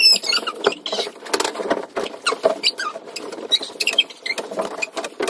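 Bedding and pillows being handled and patted down on a bed: a quick, irregular run of soft rustles and small taps. It opens with the end of a brief high squeal.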